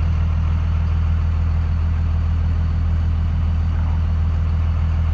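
Dodge Ram's Cummins diesel engine idling steadily, a constant low drone.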